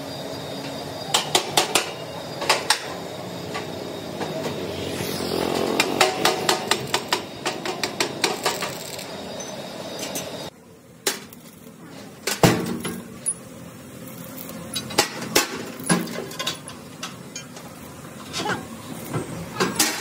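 Hammer blows on steel parts: short clusters of sharp metallic strikes, with a fast run of blows about six to nine seconds in, over a steady machine hum. About halfway the hum drops away and sparser metal knocks and clinks follow.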